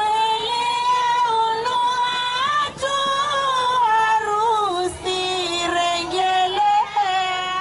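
A woman singing a melody alone in long held notes, sliding between pitches.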